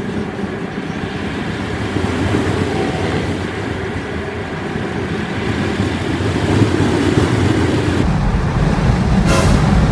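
Wind and road noise inside a Tesla Model S 85D at track speed: a steady rushing noise that grows louder and deeper about eight seconds in, with a short sharp high sound near the end.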